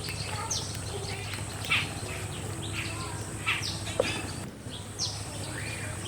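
Small birds chirping: short, falling chirps about once a second over a steady low hum, with a sharp click about four seconds in.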